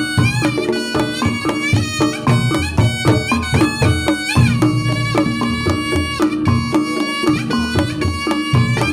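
Reog Ponorogo gamelan playing: a slompret (shawm) melody with bending notes over fast kendang drumming and other percussion.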